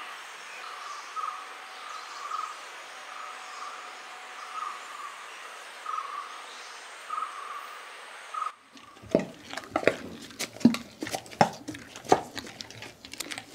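A short chirping call repeats steadily, about once every 0.7 s, over a soft hiss. About two-thirds of the way through it gives way suddenly to a hand-turned stone grinder: the stone pestle knocks and scrapes irregularly against the stone mortar as it grinds soaked rice and poha into a thick batter.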